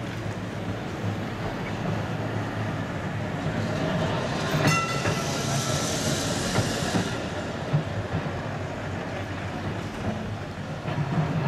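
Vintage electric tram rolling past on street track, its wheels and running gear rumbling and rattling, loudest as it passes close in the middle, with cars driving by. About five seconds in there is a sharp metallic clank with a short ringing tone.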